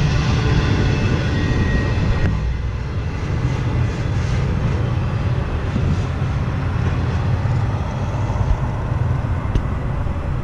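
Tail end of a double-stack intermodal freight train rolling past on the rails. The upper part of the noise thins out about two seconds in as the last cars go by, and a steady low rumble remains.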